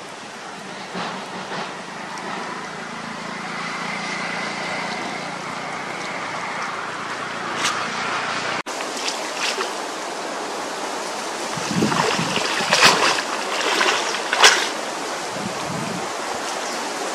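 Pond water sloshing and swishing as a hand-held nylon fishing net is worked through the shallows. After an abrupt cut about halfway through, a run of louder, sharper splashes follows from wading and handling the net at the water's edge.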